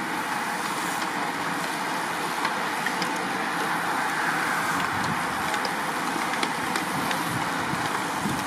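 A bunch of racing bicycles passing close by: a steady whir of tyres on tarmac, with scattered light ticks.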